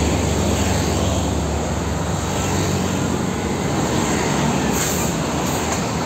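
Road traffic: a Hino LPG tanker truck's diesel engine running steadily as it drives along, with motorcycles around it. Its deep engine note is strongest in the first second.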